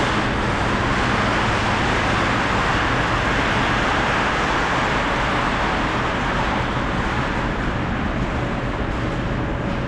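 Loud, steady mechanical noise with a low hum beneath it, running unchanged throughout.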